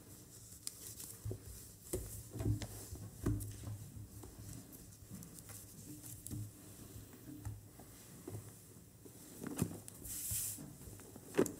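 Faint handling noises at a pulpit picked up by its microphone: scattered light taps and clicks as papers and a Bible are handled, a short paper rustle about ten seconds in as the Bible is lifted and opened, and a sharper click near the end, over a low steady hum.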